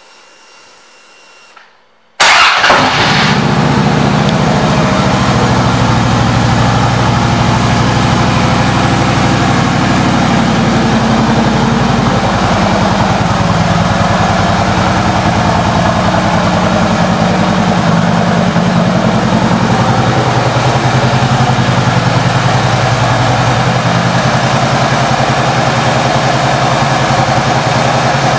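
2009 Harley-Davidson Ultra Classic's Twin Cam 96 V-twin started through its aftermarket exhaust: it catches at once about two seconds in, then idles steadily and loudly.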